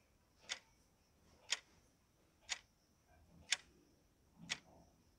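Clock-tick sound effect of a countdown timer, one sharp tick a second, five times, marking the last seconds before time runs out.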